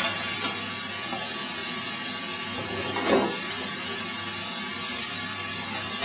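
Steady hissing rush from a charcoal-fired iron bloomery furnace as its front is broken open, with one brief louder sound about halfway through.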